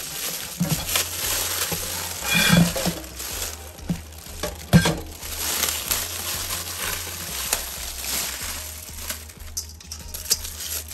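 Foil ham wrapper crinkling and tearing as it is pulled off, with the plastic vacuum packaging crackling against a stainless-steel colander; a sharp crack stands out a little under five seconds in.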